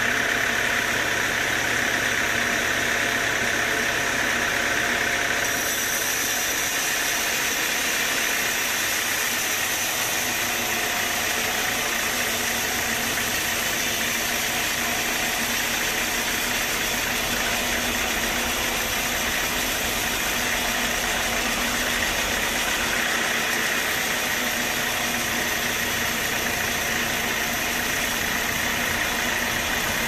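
Band sawmill running, a steady mechanical noise with faint steady tones; its tone shifts about five seconds in.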